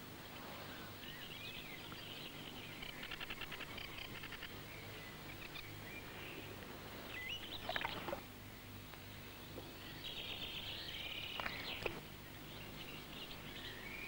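Faint birdsong: small songbirds chirping and trilling now and then, with a quick trill about three seconds in and a busier spell near the end, over a steady low hum.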